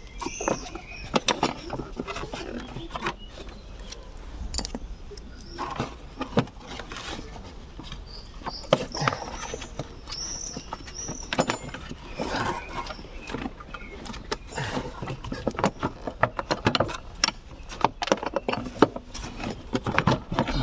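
Hands working on car parts with tools: irregular clicks, knocks and clinks, with a few short high squeaks.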